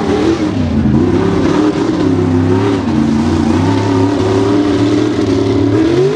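Mega truck race engine running at high revs under hard throttle. Its pitch dips about half a second in, holds high and wavers, then climbs near the end.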